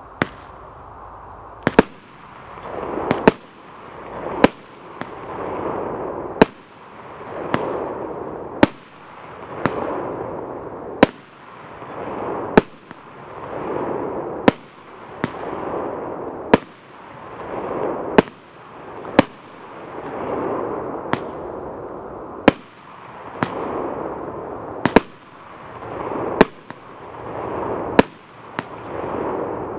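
Goldenfire SB-31 multi-shot firework cake (19 shots, 30 mm calibre) firing: a sharp report every one to two seconds, each followed by a rush of noise from the gold burst that swells and fades before the next shot.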